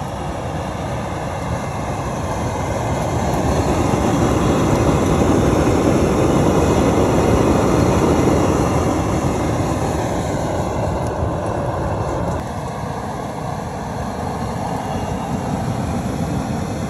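Propane deep-fryer burner running at full blast under a charcoal chimney starter, a loud steady rush of burning gas. It grows louder for a few seconds in the middle, then eases back. The flame is lighting the bottom of the charcoal in the chimney.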